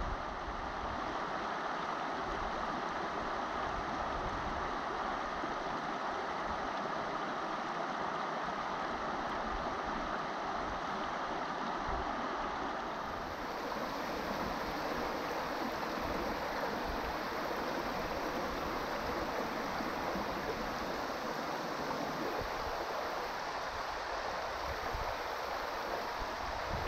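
Steady rush of river water running over a shallow, stony riffle. About halfway through the sound turns brighter and hissier.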